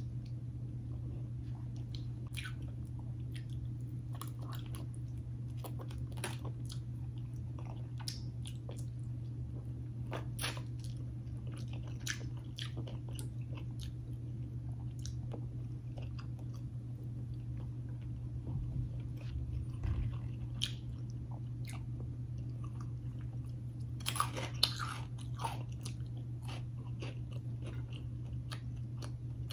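A person chewing and biting food close to the microphone, with scattered crisp crunches and clicks and a denser burst of crunching late on, over a steady low hum.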